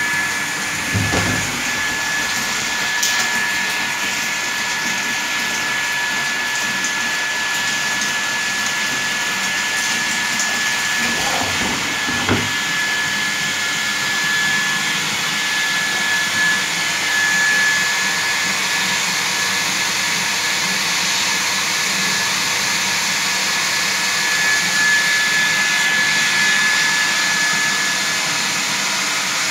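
Water filtration plant's electric pump motor running steadily, a constant high whine over an even rushing noise. Two brief low rumbles come about a second in and again around twelve seconds in.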